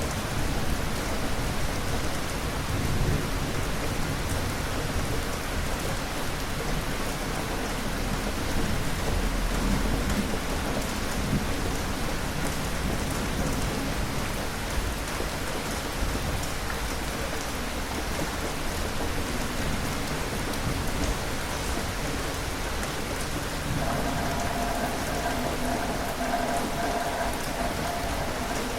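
Steady rain falling, with low rumbles swelling a few seconds in and again about ten seconds in. A steady pitched tone joins for the last few seconds.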